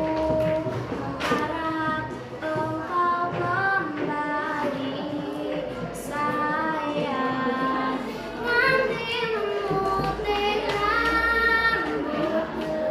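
A schoolgirl singing a melody solo, with sustained notes that slide between pitches.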